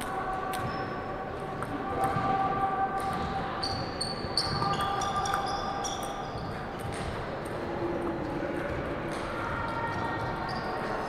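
Table tennis rally: the celluloid-type plastic ball clicking sharply off the paddles and the table in quick succession, a run of hits from about two to seven seconds in.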